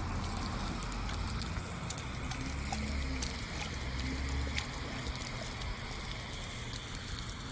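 Garden hose with a brass spray nozzle sending a thin stream of water onto brick pavers: a steady splashing hiss with scattered small clicks.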